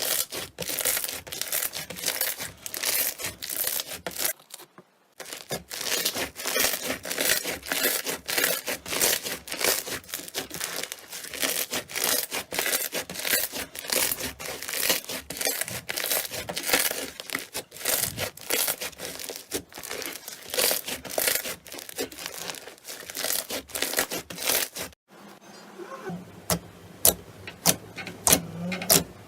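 Slime being squeezed and kneaded close to the microphone, giving dense wet crackling and popping clicks. It pauses briefly about four seconds in. Near the end it cuts to slower, separate sharp clicks.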